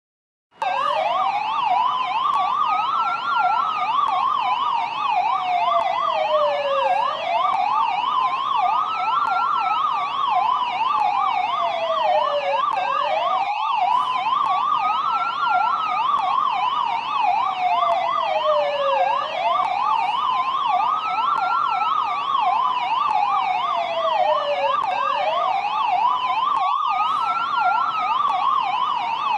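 Police siren, a slow wail rising and falling about every six seconds layered over a fast yelp, starting abruptly about half a second in. It sounds continuously, with two brief dropouts.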